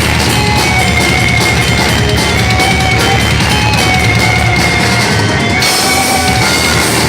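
Thrash metal band playing live at full volume: distorted electric guitars and a drum kit in a dense, unbroken instrumental passage.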